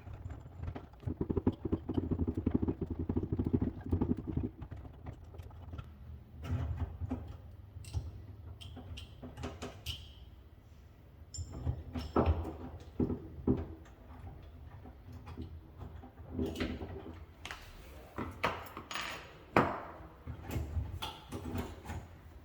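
Metal clicks, knocks and rattles of a door knob lockset being unscrewed and taken off the door, with a stretch of quick rattling in the first few seconds.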